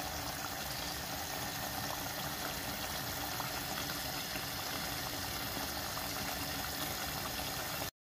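Beef curry bubbling at a steady simmer in a metal pot: a steady hiss with fine crackling pops. It stops suddenly near the end.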